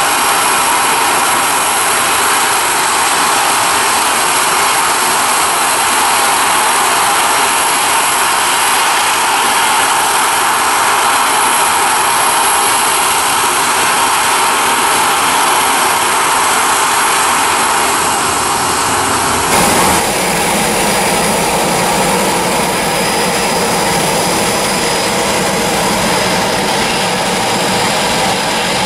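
Twin-engine narrowbody jet airliner at takeoff power: a steady, loud jet noise as it rolls and climbs away. About twenty seconds in, the sound cuts abruptly to a different, lower jet engine noise with steady tones, from an Air India Express Boeing 737 taxiing at idle power.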